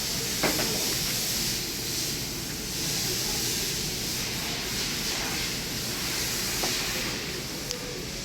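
Steady hiss, with a faint click about half a second in and another near the end.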